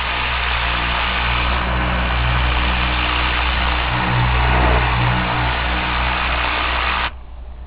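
Tornador compressed-air cleaning gun blowing with a loud hiss over a low buzzing hum, cut off suddenly about seven seconds in as the trigger is released.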